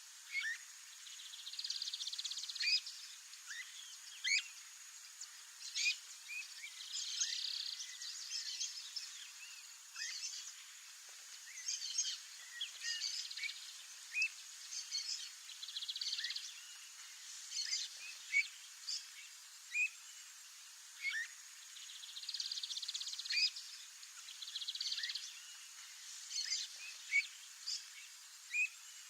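Streamer-tailed tyrant calling: many short, sharp, high call notes in irregular clusters, with patches of softer chattering every few seconds over a faint steady high hiss.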